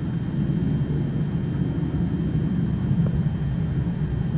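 Steady low rumble of a jet aircraft high overhead.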